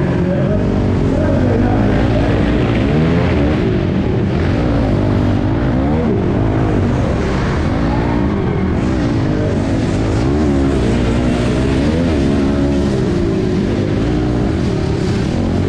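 Dirt bike engine revving up and easing off over and over, heard close up as the bike accelerates and shuts off through a series of jumps and turns.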